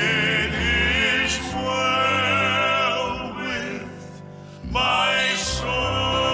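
Vocal quartet singing a hymn in harmony, long held notes with vibrato. The singing eases off about four seconds in and swells back up about a second later.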